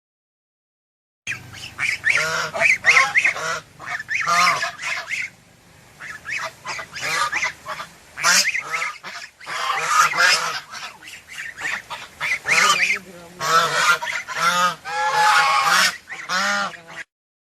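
Geese honking, a long run of short repeated calls overlapping like a flock.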